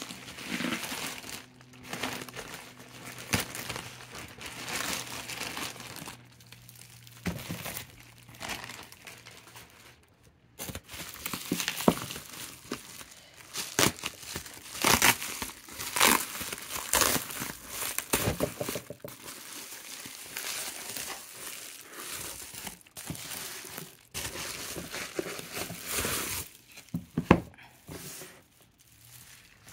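Plastic bubble wrap crinkling and rustling as hands pull it off a cardboard box, in uneven spells of crackling that are densest midway.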